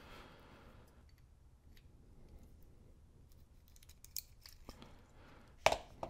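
Small metal clicks and light scraping of a pin-tumbler lock cylinder being taken apart, the plug slid out of its brass housing with a follower, with one sharp click near the end.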